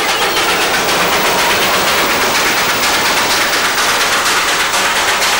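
A fast, even rattling clatter of many sharp strikes a second that keeps on without a break.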